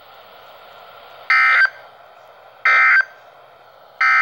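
Emergency Alert System end-of-message data bursts: three identical short, buzzy digital squawks about a second and a half apart, over a faint hiss. They signal the end of the alert message.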